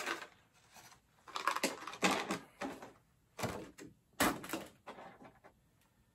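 A clear plastic blister tray and small plastic action-figure parts being handled: short bursts of plastic rustling and clacking, with a couple of sharp clicks about the middle.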